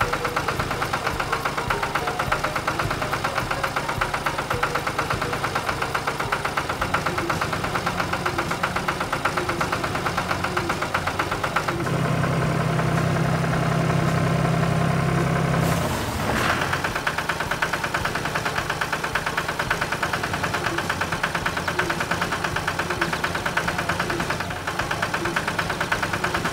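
A cartoon vehicle engine sound effect running with a fast, even chugging. From about twelve to sixteen seconds in, a steady low hum sounds over it, which ends in one sudden hit.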